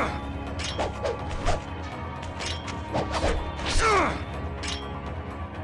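Katana sword sound effects: a series of sharp metallic strikes and swishes, each with a ringing tone that falls quickly in pitch. The loudest comes about four seconds in. A steady low hum and faint music lie underneath.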